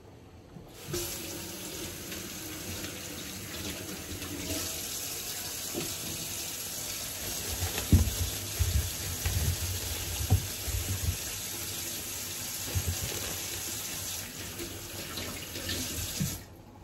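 Kitchen tap running into a sink while potatoes are washed under it. The water comes on about a second in and shuts off near the end, with low knocks and bumps through the middle as the potatoes are handled.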